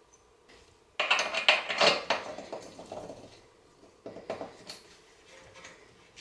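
Metal parts and hand tools clinking and clattering as the front suspension's upper control arm is worked back into place: a busy burst about a second in that fades over two seconds, and a shorter one about four seconds in.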